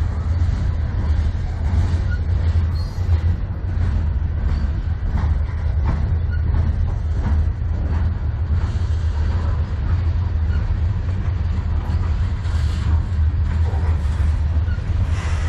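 Freight cars, mostly covered hoppers, rolling past close by: a steady, heavy rumble of steel wheels on rail with a few scattered clicks.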